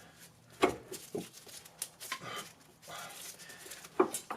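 Several sharp metal knocks and scrapes as Chevrolet Cobalt front suspension and drive-axle parts are pried and worked apart, with a cluster of knocks near the end.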